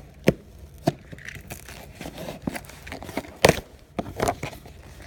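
Action-figure packaging being handled: two sharp clicks, then irregular rustling and crinkling with a loud knock about three and a half seconds in.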